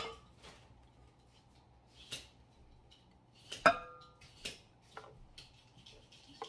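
A large spoon knocking and clinking against a bowl several times as pudding is spooned in. The loudest knock, with a short ring, comes about three and a half seconds in.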